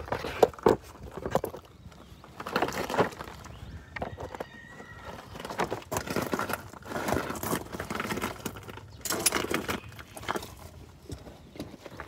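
Handling noise: clinks of metal wrenches and a ratchet picked up and set down on a mat, with rustling and shuffling movement in irregular bursts.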